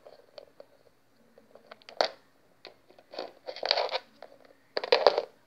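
Small plastic Littlest Pet Shop figures being handled and set down on a hard surface: scattered light clicks, a sharp one about two seconds in, and several short rustling scrapes.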